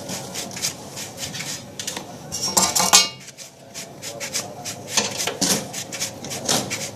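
Small metal objects clinking and clattering in a run of short knocks, with a louder clatter about two and a half seconds in.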